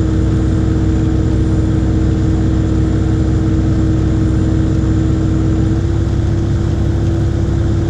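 IHI 80NX compact excavator's diesel engine running steadily, its pitch stepping up slightly about six seconds in.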